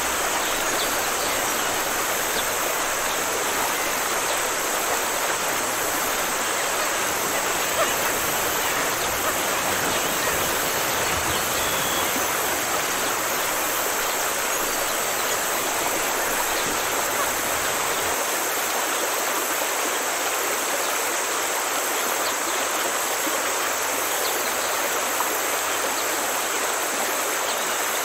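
Steady rushing of running water, as of a stream, unbroken throughout.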